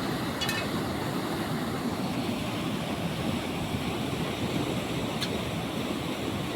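Steady rushing of flowing water, with two brief high ticks, one about half a second in and one about five seconds in.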